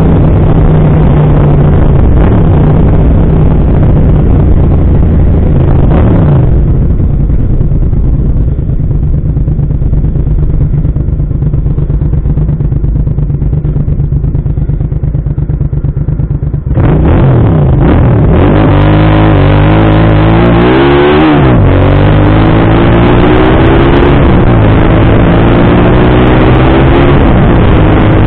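Motorcycle engine and wind rushing past the microphone while riding. A few seconds in, the engine drops back to a low, even idle as the bike waits at a red light. About two thirds of the way through it opens up loudly and accelerates away, rising in pitch through several gear changes.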